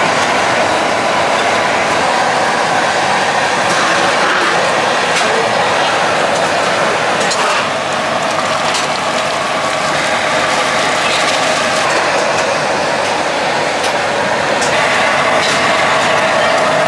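Large aluminium stockpot of soup at a full rolling boil: steady, loud bubbling and churning.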